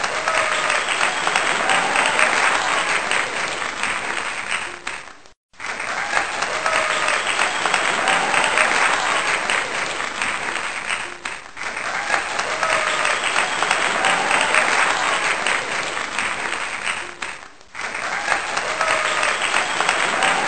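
Crowd applause with cheering, coming in passes of about six seconds with a brief drop between each, like a repeated applause sound effect.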